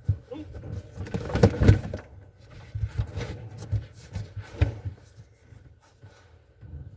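Irregular knocks, scraping and rustling from hands handling trunk carpet and parts inside a car's trunk. The loudest run of knocks comes about a second and a half in.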